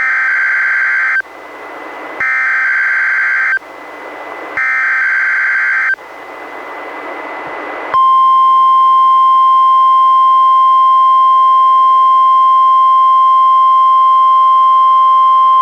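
NOAA Weather Radio test signals received on a Reecom R-1630 weather radio: three bursts of SAME digital header data, each about a second and a half long, with receiver hiss in the short gaps between them. About eight seconds in, the steady 1050 Hz warning alarm tone starts and holds, sent as a required weekly test of the alarm.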